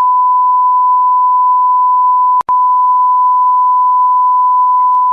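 A steady, loud electronic beep: a single pure tone at about 1 kHz, broken once by a split-second dropout about two and a half seconds in.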